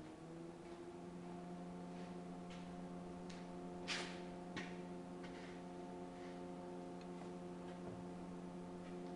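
A steady motor hum with faint, irregular ticks and clicks, and one louder click about four seconds in.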